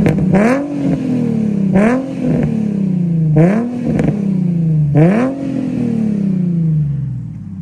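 Nissan 350Z HR's 3.5-litre V6, fitted with an aftermarket exhaust, revved in four quick free-revving blips, each jumping up with a sharp crack and easing slowly back down. The engine settles back to idle near the end.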